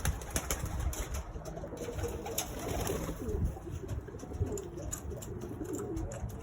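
Pigeons cooing in a loft: many low, wavering coos overlapping, with scattered sharp taps and clicks.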